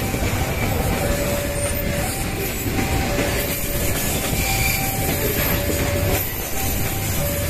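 Long train rolling past, a steady rumble of wheels on the rails with short, faint squealing tones that come and go.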